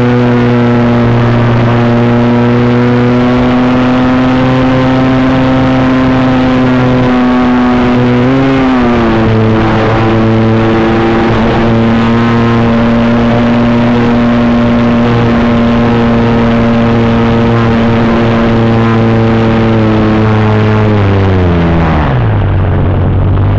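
Radio-controlled model Cessna's motor and propeller, heard from a camera on board: a steady droning hum at cruise throttle. Its pitch briefly rises and dips about a third of the way in. Near the end the pitch slides down as the throttle is pulled back, and air rush takes over.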